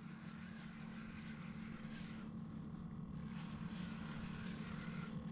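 A motor droning steadily at one pitch and slowly growing louder, like an engine approaching or being throttled up.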